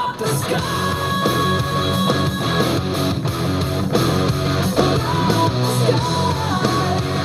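Rock music with electric guitar, playing steadily at full volume.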